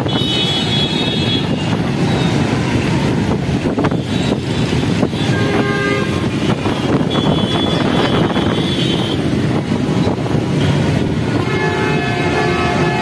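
Slow street traffic wading through floodwater: engines of auto-rickshaws, motorcycles and cars running in a steady wash of noise, with vehicle horns honking near the start, a couple of times midway and again near the end.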